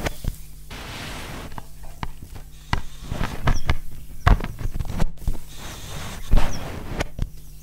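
Experimental improvised sound piece: irregular sharp clicks and knocks with short bursts of noise, over a steady low hum.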